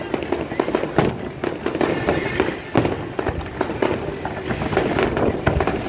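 Aerial fireworks bursting and crackling in quick succession, with the sharpest bangs about one second in and just before three seconds.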